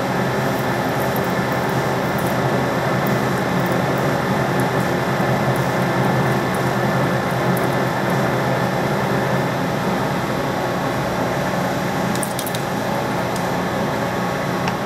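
Metal lathe running steadily while a radius form tool takes a full-width cut in the spinning metal part. The cut runs smoothly, without chatter.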